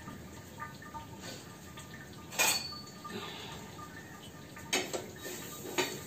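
Steel kitchen utensils clinking and knocking: a few sharp metallic knocks, the loudest about two and a half seconds in and a short cluster near the end.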